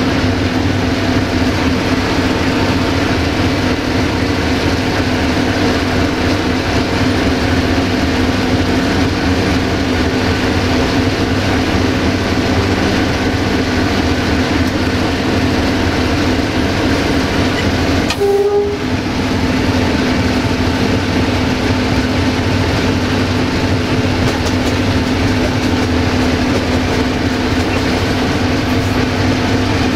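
Cab interior of a 060-DA (LDE2100) diesel-electric locomotive under way: its Sulzer diesel engine runs with a steady hum over the rumble of the wheels on the track. About 18 seconds in, the sound dips briefly and a short tone is heard.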